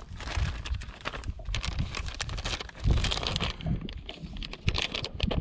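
A plastic bag of soft-plastic fishing worms crinkling and rustling as it is handled, in quick irregular crackles.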